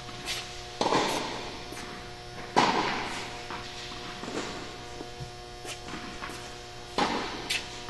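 Tennis balls struck by racket strings and bouncing on an indoor court, each sharp pop echoing briefly in the hall: three louder strikes, about a second in, near three seconds and near the end, with fainter knocks between. A steady electrical hum runs underneath.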